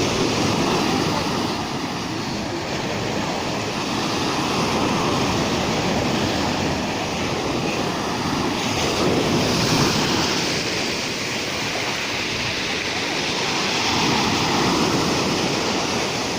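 Surf of a rough sea: waves breaking and washing on the shore in a continuous rush that swells and eases every four to five seconds.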